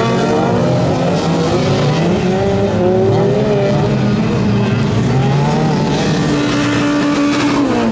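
Several front-wheel-drive autocross cars racing on a dirt track, their engines revving together, pitches rising and falling as they accelerate and lift off. Near the end one engine holds a steady note and then drops.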